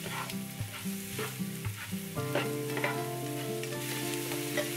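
Shrimp, scrambled egg, mushrooms, onion and green chilies sizzling in olive oil in a pan over high heat. A slotted spatula stirs the mix and scrapes and taps against the pan at irregular moments.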